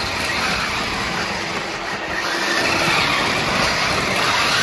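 Battery-powered RC monster truck (New Bright Hot Wheels Rhinomite) driving, its electric motors and gears whirring and its big rubber tyres rolling on a hardwood floor, a steady noise.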